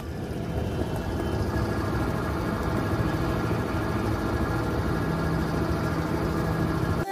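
Suzuki Access 125 scooter's single-cylinder engine running at a steady, even pitch.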